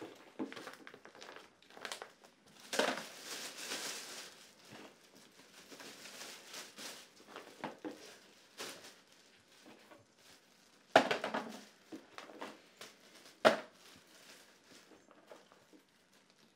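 A black plastic bin bag rustling and crinkling as things are handled and dropped into it. Two sharper knocks stand out in the second half.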